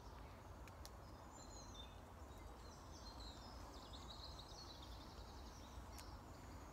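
Faint woodland ambience: small birds chirping and twittering over a low steady background rumble, with two small clicks about five seconds apart.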